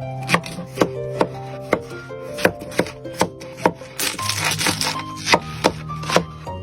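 Repeated sharp knocks of a knife on a wooden cutting board, about two a second, over gentle tavern-style background music with a slow melody and bass. There is a brief hiss about four seconds in.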